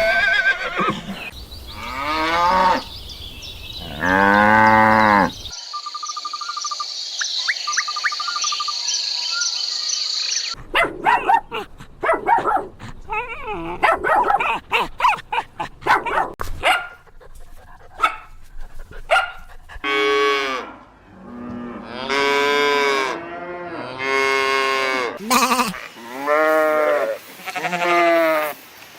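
Farm animals calling in a run of short clips, mostly long pitched moos typical of cattle. About eight calls follow one another in the last third, and a few seconds of thin high-pitched chirping come in between.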